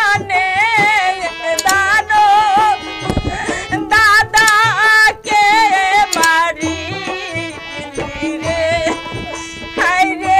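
A woman singing a grieving song in a high voice, with a wavering, heavily ornamented melody, over a steady held drone note and hand-drum beats.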